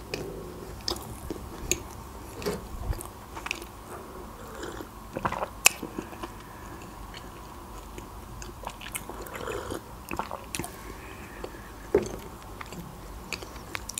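Close-miked chewing of a soft chocolate cupcake, with scattered wet mouth clicks and smacks, and a sip from a mug around the middle.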